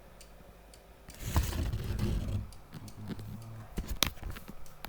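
Handling and wiping noises on a wooden cuckoo clock case as it is dusted: a second or so of rubbing and rustling, then scattered knocks and clicks, with one sharp click about four seconds in.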